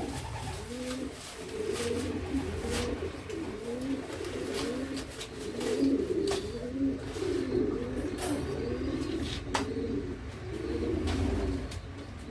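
Domestic pigeons cooing continuously, several coos overlapping one another, with a few light clicks.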